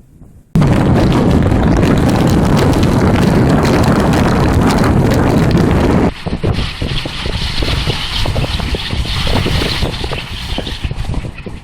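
High wind blasting the microphone, starting suddenly about half a second in as a heavy, steady rumble. From about six seconds the rumble eases into gusty, hissing wind.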